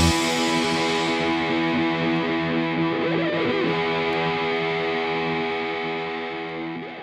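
Background rock music: a single distorted electric guitar chord held and ringing out, slowly fading away toward the end.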